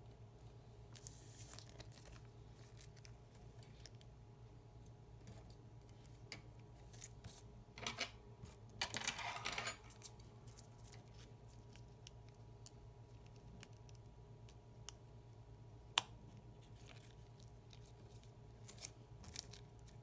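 Small metal tools handling watch parts: scattered light clicks and scrapes, a short scratchy rustle about eight to ten seconds in, and one sharp click about sixteen seconds in.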